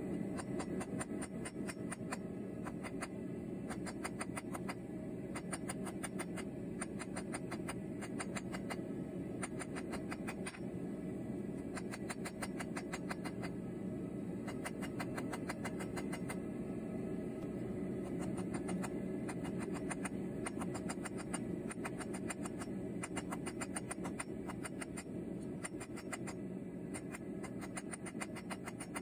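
Quick series of light hammer blows on a thin red-hot steel bar against the anvil, over a steady low drone.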